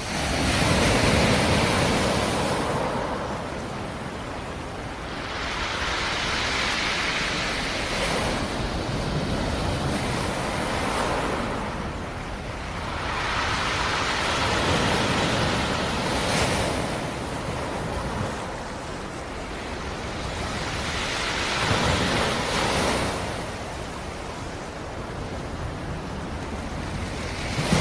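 Sea surf: waves breaking on the shore one after another, each swell of rushing water rising and falling away about every six to seven seconds.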